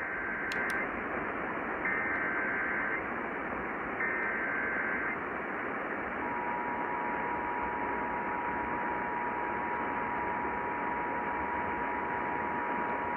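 Emergency Alert System signal over radio static: three one-second bursts of warbling digital SAME header data, then from about six seconds in the steady two-tone attention signal. Together they announce an incoming alert, here a severe thunderstorm warning.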